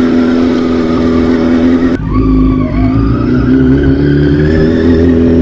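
Yamaha R6 sportbike's inline-four engine running at high revs under way, with wind rumble. A sudden break about two seconds in, after which the engine note climbs steadily as the bike accelerates.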